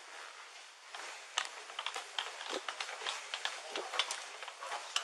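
Handling and movement noise on an Axon Body 2 police body camera's microphone: irregular light clicks and taps as the wearer moves and brushes past things, over a steady hiss. The tapping starts about a second and a half in.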